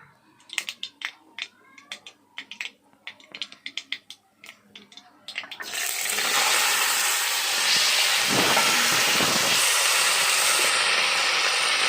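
Scattered sharp clicks and pops, then a little over halfway a sudden loud sizzle that carries on steadily: food dropped into hot oil in a pan and frying.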